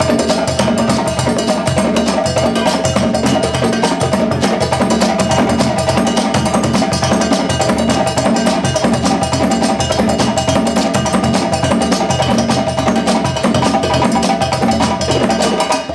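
West African percussion ensemble playing a fast, dense rhythm: djembes and stick-beaten drums with a wooden balafon ringing over them.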